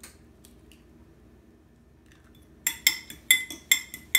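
A fork beating a raw egg in a small glass bowl: rapid, ringing clinks of the metal fork against the glass, about five a second, starting a little over halfway through.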